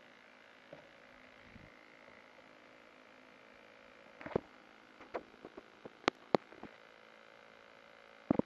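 A faint steady electronic hum, then from about four seconds in a string of sharp clicks and taps from a hand handling the action camera at close range.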